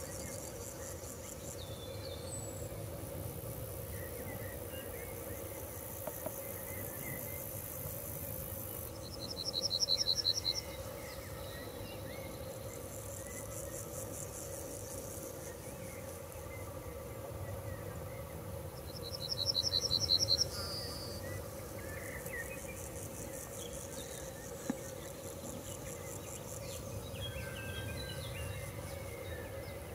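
Insects chirping in the grass: a continuous very high, fast-pulsed chirring over a steady hum. Twice, about ten and twenty seconds in, a louder pulsed chirp lasts about a second and a half.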